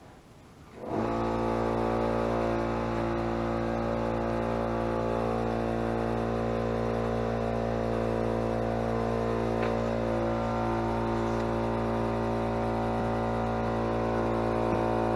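Air compressor starting up about a second in, then running steadily as it builds pressure in its tank.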